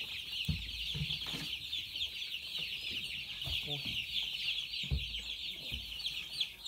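A brood of broiler chicks peeping nonstop, many high cheeps overlapping into a dense chorus, with a few dull knocks mixed in.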